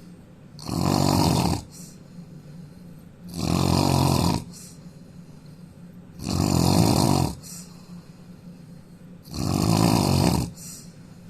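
A man snoring loudly: four snores about three seconds apart, each lasting about a second.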